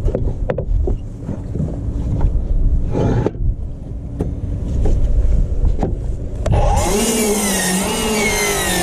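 Low rumble with scattered knocks, then about two-thirds in a Milwaukee 7-1/4" cordless miter saw spins up and cuts through a framing board, its motor pitch wavering under the load.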